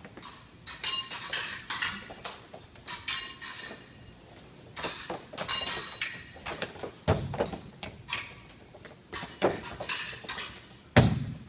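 Steel fencing blades clashing and scraping in quick flurries, with short metallic rings. Sneakers thud and stamp on the floor in between, hardest about seven and eleven seconds in.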